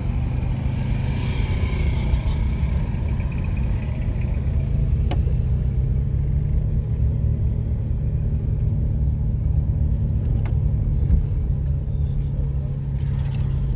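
Street traffic: a steady low engine rumble of motor vehicles, with a few brief clicks.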